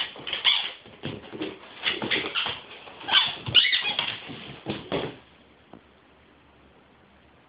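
A German Shepherd biting down on a blue rubber squeaky toy, squeaking it over and over in quick bursts; the squeaking stops about five seconds in.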